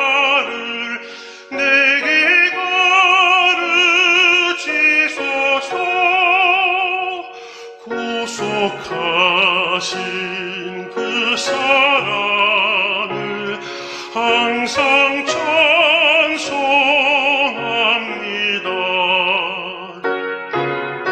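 Tenor singing a hymn in operatic style with wide vibrato, accompanied by piano; the voice stops near the end while the piano carries on.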